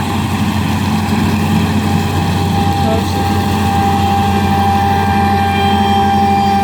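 Harvest machinery running steadily: a constant low engine drone with a steady whine above it.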